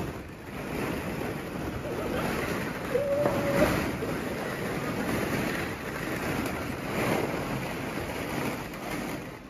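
Plastic balls in a ball pit rustling and clattering as someone moves around in them, a dense, steady surf-like rustle.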